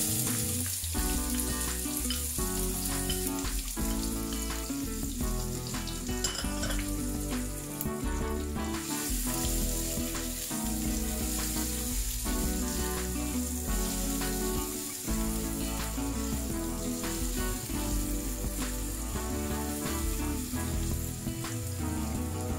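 Chopped red onion sizzling steadily in hot oil in a non-stick wok, the hiss starting as the onion goes in and stirred with a spatula.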